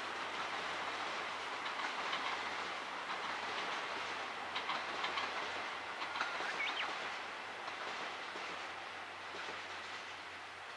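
Modified 12-series passenger coaches of a steam-hauled train rolling past, their wheels clattering over the rail joints with a few sharp clicks about halfway, fading as the last coach goes round the curve.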